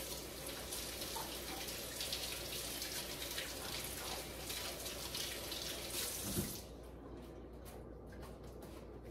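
Kitchen faucet running into the sink as jalapeño peppers are rinsed under it; the water stops about two-thirds of the way through, with a light knock.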